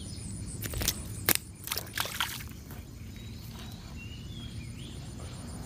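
A small peacock bass released back into the lake: a few quick splashes and sloshes at the water's surface, between about one and two seconds in.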